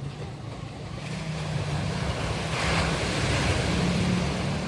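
Ocean surf breaking on a beach: a wave swells from about a second in and washes in loudest around the middle, over a low steady hum.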